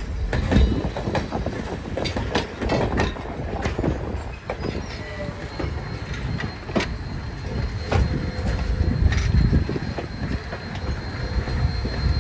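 Steel passenger coaches rolling slowly past close by: a low rumble of wheels on the rails, with irregular clicks and knocks from the wheels and couplings and a thin, high wheel squeal.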